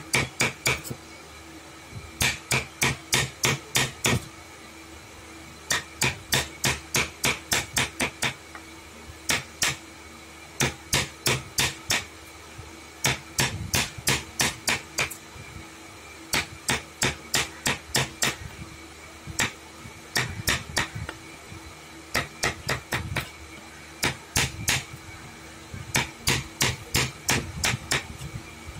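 Hammer blows in quick runs of five to eight strikes, about three a second, with short pauses between the runs.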